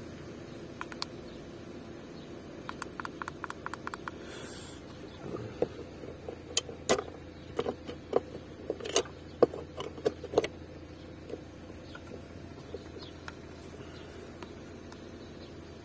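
Plastic button clicks from a handheld OBD-II code reader being worked to erase stored trouble codes: a quick run of about eight light clicks a few seconds in, then a stretch of louder, irregular clicks and knocks from handling in the car, over a steady low hum.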